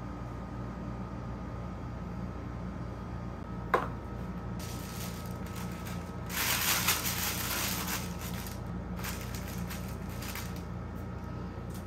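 Pink tissue paper crinkling and rustling as it is handled around a crocheted toy in a molded-pulp box, loudest a little past the middle and again briefly near the end, after one sharp tap a little before four seconds in.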